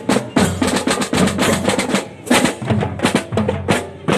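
Loud music driven by fast, dense drum and percussion strikes over a low bass line and pitched instruments.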